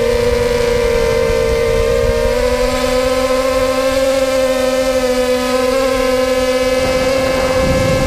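Brushless motors and propellers of a 250-size racing quadcopter whining at a steady pitch, with a slight wavering of pitch in the first couple of seconds, heard through the onboard camera with low wind rumble on its microphone.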